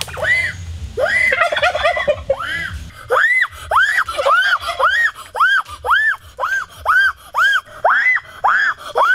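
Turkeys calling: a quick gobbling rattle about a second in, then a steady run of loud, separate calls, about two a second, each rising and then falling in pitch.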